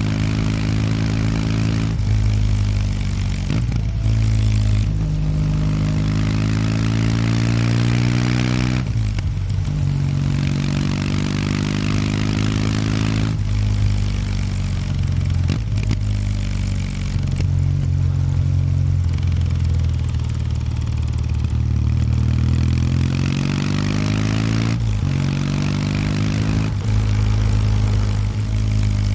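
A 2019 Kawasaki W800 Street's air-cooled parallel-twin engine through its stock exhaust, ridden on the road. The revs climb and then drop at each of several gear changes, fall away for a while in the middle as the throttle is eased off, and then climb again to one more shift near the end.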